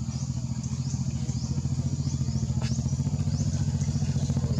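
A motor engine running steadily with a fast low pulsing, slowly getting louder. Short high falling chirps repeat about twice a second over it.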